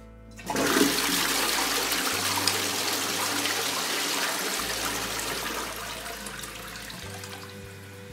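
Toilet flushing: a loud rush of water starts suddenly about half a second in, swirls a pile of M&M candies down the drain, and fades over the last couple of seconds.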